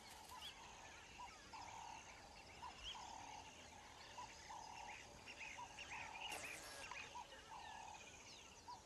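Faint wild-animal ambience: short calls repeating about every half second, with higher chirps and twitters over them.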